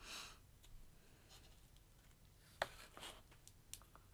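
Faint handling of small plastic dropper bottles of liquid watercolor against a cardboard card: a brief rustle at the start, a sharp click about two and a half seconds in, and a few lighter ticks.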